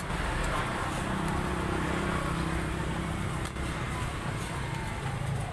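Steady roadside street noise: traffic hum with a low background murmur.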